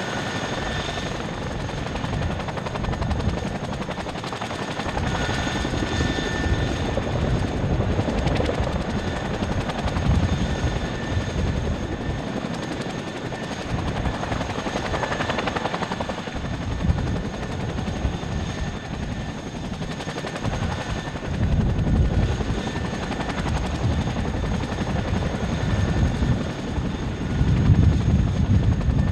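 Two CH-47 Chinook tandem-rotor helicopters, one turning its rotors on the ground and one hovering close by: a steady rotor beat with a high turbine whine, growing louder near the end as the hovering one draws nearer.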